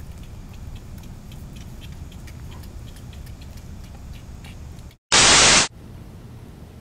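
Steady outdoor background rumble with faint ticks. About five seconds in, the sound cuts out for an instant, then a loud burst of TV static lasts about half a second: an edited-in channel-change effect marking a cut between scenes.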